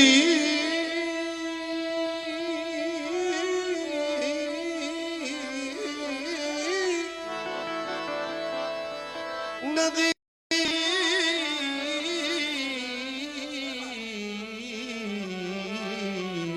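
Male devotional singer holding a long, ornamented, wavering note on the word "nadi" over held instrumental accompaniment. The sound cuts out for a moment about ten seconds in, then he sings "nadi" again and draws it out, sliding down in pitch near the end.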